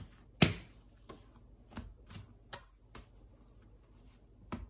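Wet, sticky sourdough dough being pressed and worked by hand on a floured granite countertop: a sharp slap about half a second in, then softer irregular slaps and taps, with one more near the end.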